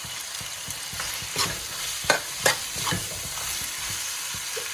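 Onion and sauce mixture frying in hot oil in a pan, with a steady sizzle, while a spoon stirs it and knocks against the pan a few times around the middle.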